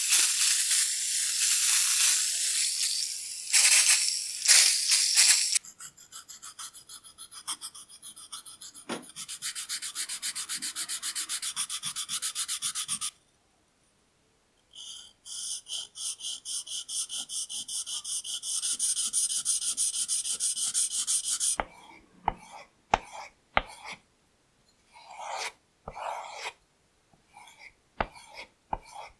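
A liquid is sprayed in hissing bursts onto a whetstone. Then a chisel blade is rubbed back and forth on the wet stone in rapid, even sharpening strokes, in two long runs. Near the end the blade is drawn across a leather strop in separate short strokes.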